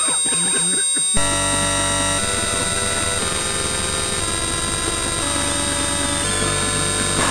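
Loud, dense electronic noise: many held tones stacked over a hiss. The chord changes abruptly about a second in, then several more times.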